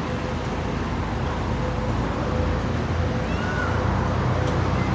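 Steady low rumble of idling vehicle engines, most likely the waiting tour buses, with a thin steady hum above it.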